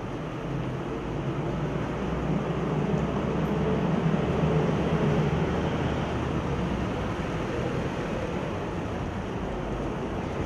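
Steady low rumble of a vehicle engine, growing louder a few seconds in and then easing off.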